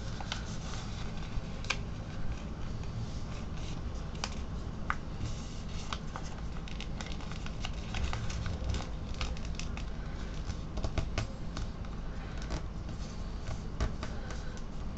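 A sheet of paper rustling and crinkling as it is folded and creased by hand into a paper airplane, with scattered sharp clicks and scrapes, over a steady low hum.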